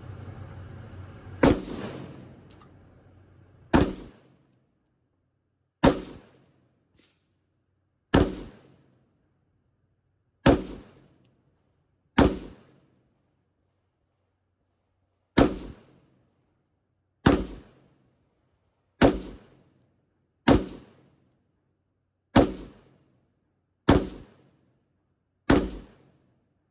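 Firearm shots at a shooting range: thirteen single, sharp shots fired slowly, one every two seconds or so, each ringing off briefly.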